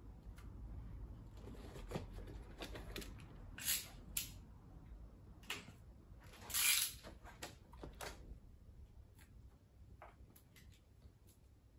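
Hand work on a steel door frame: a scattering of brief scrapes and rustles as a thin strip is worked along the frame's glass opening, the longest and loudest a little past halfway, growing sparser near the end.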